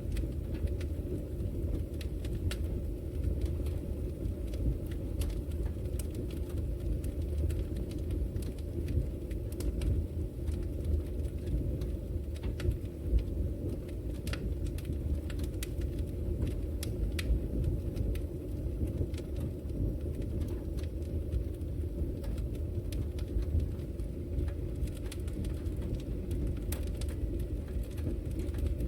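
Wood fire crackling in a fireplace: a steady low rumble of burning with frequent sharp, irregular pops and snaps.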